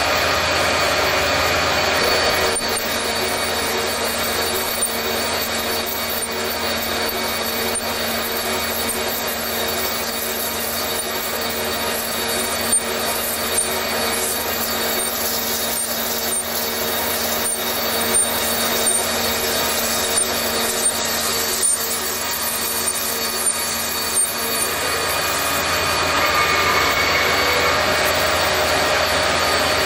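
Large CNC vertical lathe turning the inside of a big metal ring: the tool scrapes steadily through the metal over the hum of the machine, with several short sharp clicks in the middle.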